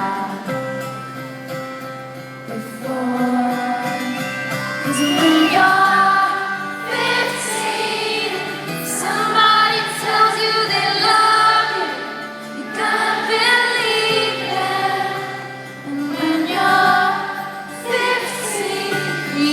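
Live pop-country song: a female voice sings a melody over band accompaniment in a concert arena, picked up by a phone microphone with no deep bass.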